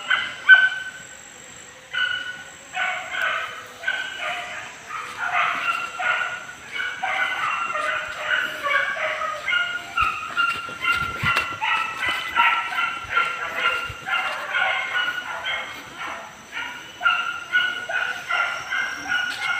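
Boar-hunting dogs barking and yelping in quick succession, several barks a second with a short pause about a second in: the pack giving tongue on the chase of a wild boar.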